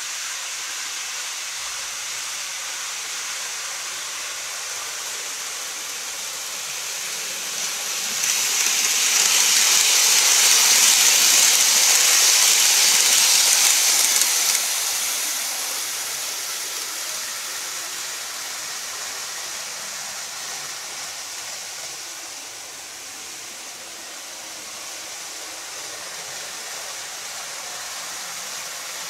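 N-scale model train running on plastic viaduct track, its wheels and motor making a steady hissing rolling noise. The noise swells as the train passes close by, about eight seconds in, and fades after about fourteen seconds.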